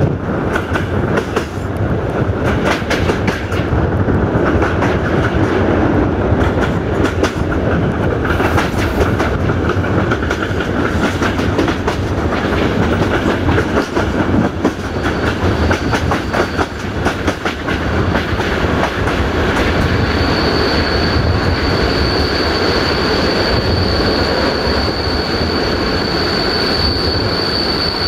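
Passenger train running along the track: a steady rumble with the wheels clicking over the rail joints. About halfway through a high, thin squeal from the running gear comes in, and from about two-thirds of the way it is strong and holds steady to the end.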